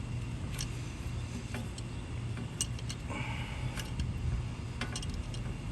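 Scattered light clicks and ticks of hand tools at work on a car's front brake caliper, with a short scrape about three seconds in, over a steady low hum.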